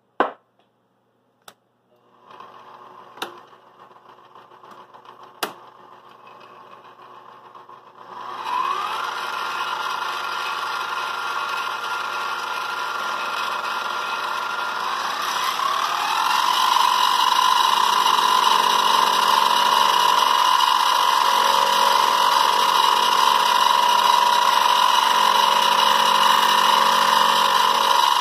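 Benchtop milling machine's spindle motor: a few sharp clicks, then it spins up with a rising whine about eight seconds in, holds a steady whine, and speeds up to a higher, louder steady whine around sixteen seconds in, while milling the frame of a model locomotive.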